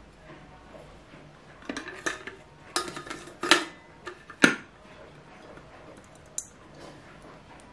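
A stainless steel tea infuser clinking and knocking against a glass teapot as it is handled and fitted back inside. There are several sharp clinks in the first half, the loudest about three and a half and four and a half seconds in, and one light tick later on.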